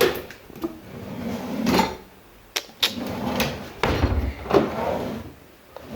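Kitchen cabinet doors and drawers being opened and shut: a string of sharp knocks and clicks, with a few heavier thuds about four seconds in.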